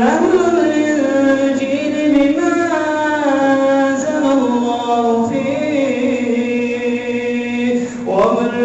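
A man's voice reciting the Quran in a slow melodic chant, drawing out long gliding and held notes. There is a short pause near the end before the next phrase begins.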